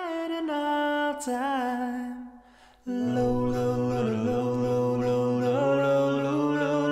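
A singing voice holding long, drawn-out notes that waver briefly, breaks off for about half a second near the middle, then comes back in on a long lower note.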